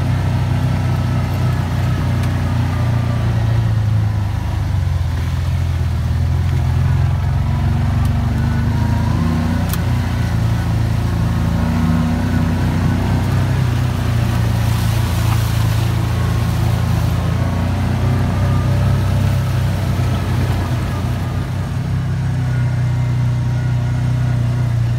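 Off-road side-by-side engine running steadily, heard from on board: a low drone that rises and falls slightly in pitch as the vehicle crawls along a muddy track.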